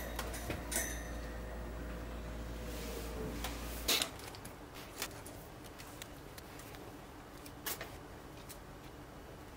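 Light clicks and ticks of wires and small hand tools being handled, with the sharpest click about four seconds in and a double click near eight seconds. A low steady hum underlies the first four seconds and then stops.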